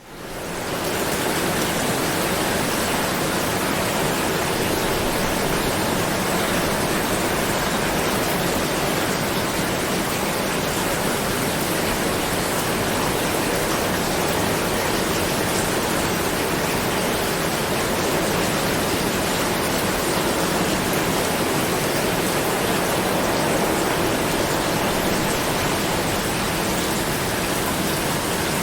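Steady heavy rain, a dense even hiss with no single drops standing out, fading in over the first second.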